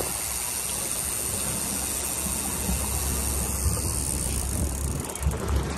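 Steady rush of wind on the microphone and water moving along the hull of an offshore fishing boat under way, with a few low buffets near the end.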